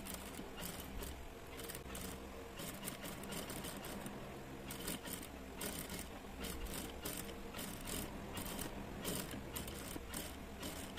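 Sewing machine running steadily, sewing a row of long gathering stitches through a ruffled cotton frill, with many light clicks and rustles through it.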